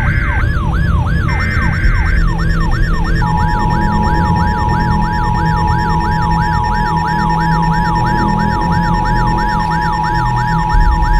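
Electronic siren in a fast yelp, sweeping up and down about three times a second, with a few short high beeps near the start. From about three seconds in, the steady two-tone EAS attention signal joins it, over a low rumble.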